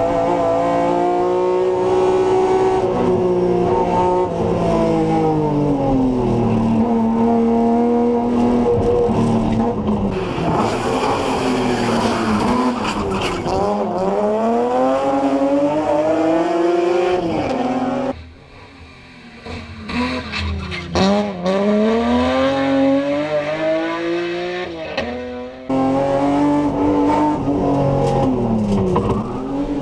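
BMW M3 hillclimb race car driven hard: the engine revs climb and fall again and again through shifts and corners, with tyres squealing in places. About 18 seconds in it drops in loudness for a few seconds, then comes back loud.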